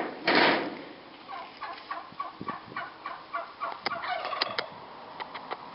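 An old feed shed being crushed: a loud crunch just after the start, then a quick string of short squeaky, gobble-like sounds, then scattered sharp snaps and cracks.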